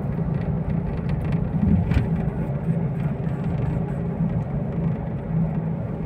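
Car cabin noise while driving slowly: a steady engine hum and road rumble from inside the car, with one brief knock about two seconds in.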